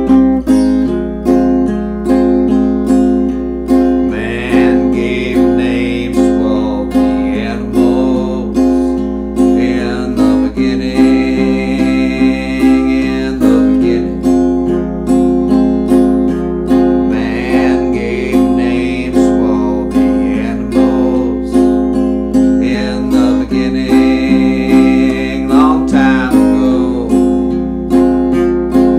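Music: an acoustic guitar strummed in a steady rhythm, with a higher melody line coming in several times over it.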